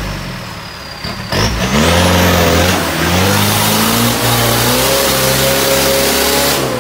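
Off-road 4x4's engine revving hard under load as the vehicle claws up a steep muddy bank: about a second in it rises sharply in pitch and stays at high revs, wavering up and down, with mud and tyre noise under it, easing off near the end.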